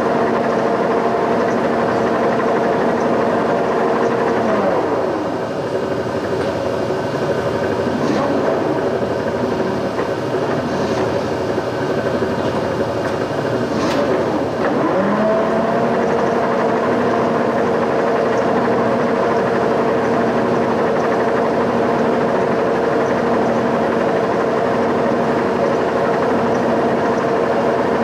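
Boring mill running as its table travels under a dial indicator, a steady motor whine. About 5 seconds in the whine sinks in pitch, shifts through the middle, and climbs back to its steady pitch about 15 seconds in, as the feed slows and picks up again.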